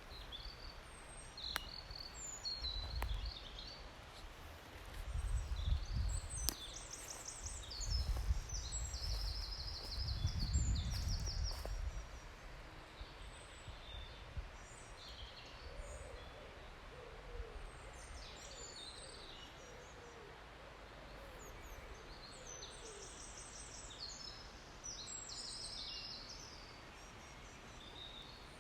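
Forest songbirds singing, with repeated high phrases of quick notes. A low rumble of wind on the microphone comes in gusts in the first dozen seconds, and a faint, lower series of hooting notes follows in the middle.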